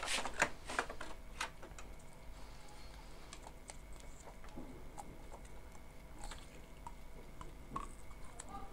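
Small plastic clicks and taps from handling a printer's ink damper and ink tubes by hand, a quick run of clicks in the first second or so, then scattered single clicks.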